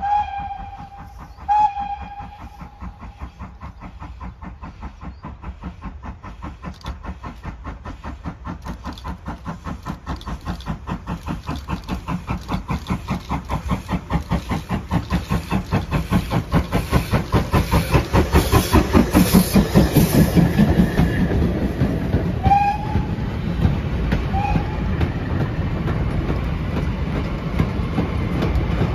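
GWR Hall-class two-cylinder 4-6-0 steam locomotive giving two short toots on its whistle, then working hard with a train of four-wheeled goods wagons: its even exhaust beats grow louder as it approaches and passes close by. After it passes there are two more short whistle-pitched tones, then the steady rumble and clatter of the wagons over the rail joints.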